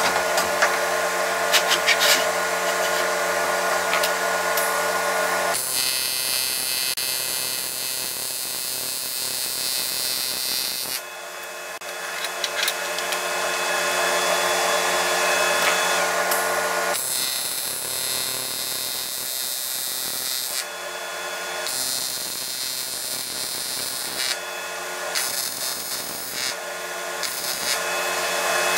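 AC TIG welding arc on aluminum buzzing steadily as a bead is run around a round boss welded into a plate. The buzz's tone shifts abruptly every few seconds.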